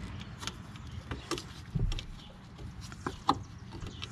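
Light scattered metal clicks and taps as a drum brake shoe's hold-down spring and cap are pressed down and twisted onto the hold-down pin, with a couple of sharper knocks about two and three seconds in.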